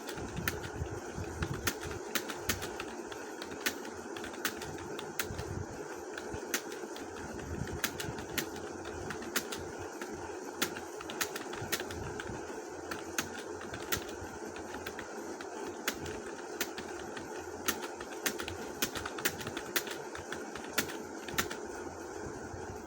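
Typing on a mobile phone's on-screen keyboard: irregular sharp key clicks, one to three a second, over a steady background hum.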